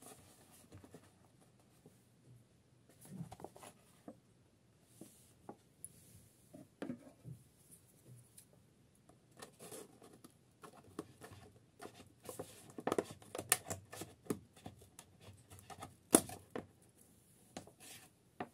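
Hands handling a small cardboard box with a clear plastic window: irregular rustling, scraping and tapping of card and plastic. It grows busier in the second half, and the loudest sound is a sharp tap a couple of seconds before the end.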